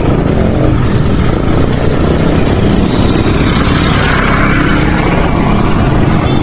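Loud, steady rumble of wind and road noise on the camera's microphone while riding a mountain bike.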